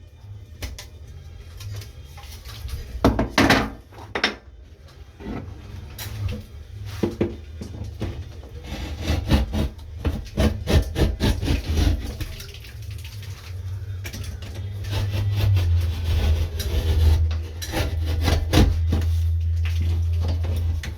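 Pieces of drywall being handled and fitted back into a wall opening: irregular scraping, rubbing and knocks, with a steady low rumble in the second half.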